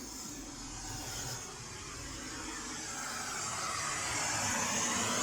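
Pink noise test signal playing through loudspeakers, a steady hiss that grows louder over the second half. A low hum sits underneath for the first few seconds and then fades out.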